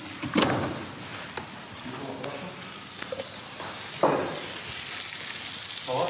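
Food sizzling in a frying pan, a steady hiss, with a few light knocks of utensils.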